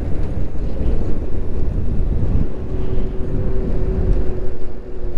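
Wind buffeting the microphone of a rider moving at speed on an electric bike, a heavy low rumble. A thin steady whine comes in about halfway through.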